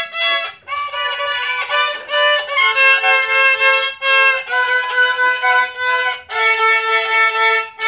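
Two violins bowed together, playing a slow tune of held notes in short phrases with brief breaks between them.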